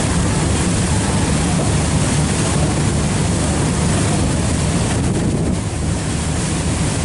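Steady wind buffeting the microphone on a boat, over water wash and a low, steady rumble of the boat's engine.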